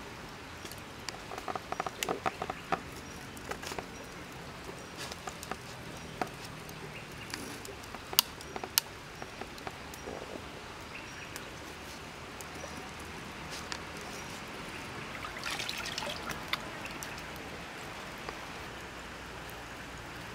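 A small stream running steadily, with scattered sharp clicks and knocks over it; two louder clicks come about eight seconds in.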